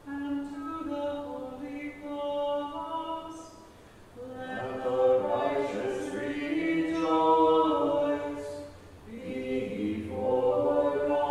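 Voices chanting unaccompanied in plainsong style. A thinner line of singing at first, fuller and louder from about four seconds in, with a brief breath near nine seconds before the chant resumes.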